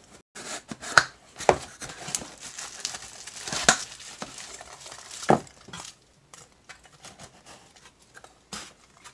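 Small cardboard boxes being handled and opened by hand: rustling and crinkling of cardboard and packing with scattered sharp taps and knocks, busiest in the first six seconds, then only a few faint ones.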